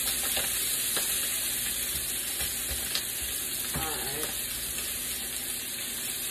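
Sliced sausage sizzling on a hot electric griddle, a steady hiss, with a few light clicks of a spatula against the griddle plate as the slices are turned.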